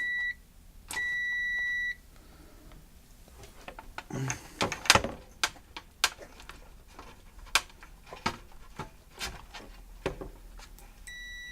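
Multimeter in continuity mode beeping with a steady high tone: a short beep at the start, a one-second beep about a second in, and broken beeps near the end, as the probes close the circuit between the heater's earth screw and the plug's earth pin, showing the ground is connected. Between the beeps, sharp clicks and taps of the probes being handled.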